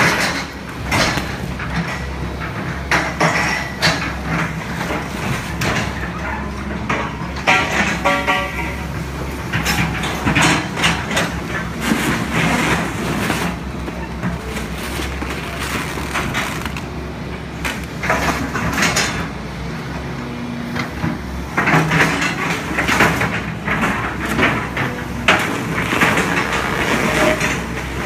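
Doosan hydraulic excavator's diesel engine running steadily while its bucket crushes and drags a fabric-covered metal awning frame, with repeated crunching, scraping and clattering.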